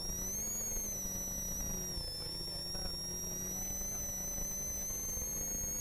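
Ford Sierra RS Cosworth rally car's turbocharged four-cylinder engine, heard from inside the cabin while driving at speed, with a strong high-pitched whine over the engine note. The whine dips about two seconds in, then climbs slowly again.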